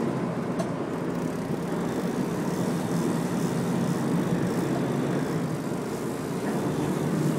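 Steady drone of a sportfishing boat's engine running, mixed with a wash of wind and water noise.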